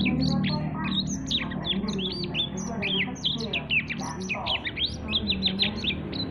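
Young blackthroat (black-throated canary) singing without a break: a fast run of high, quickly sliding chirps and trills.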